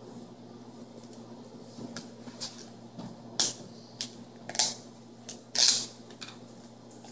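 A plastic tub being handled on a stainless steel worktable: a string of short scrapes and knocks, three louder ones about three and a half, four and a half and nearly six seconds in, the last the longest and loudest, over a steady low hum.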